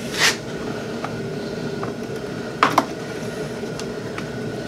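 Plastic clicks and knocks as Carling rocker switches are pushed into a plastic UTV dash panel, with a louder double click a little under three seconds in. A steady hum lies underneath.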